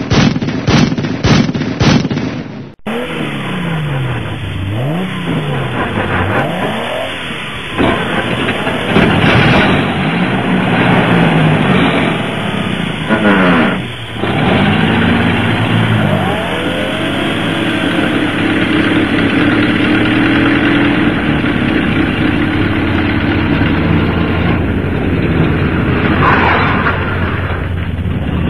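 A string of sharp bangs about twice a second that cuts off abruptly, followed by a motor vehicle engine revving up and down over and over, its pitch rising and falling.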